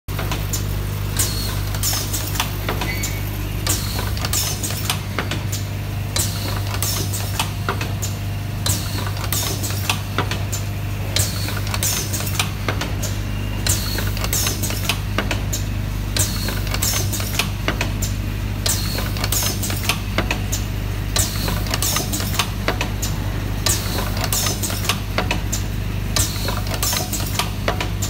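Automatic right-angle pin header assembly machine running: a steady low hum from its vibratory bowl feeder under a fast, uneven run of sharp metallic clicks from the feeding and insertion tooling.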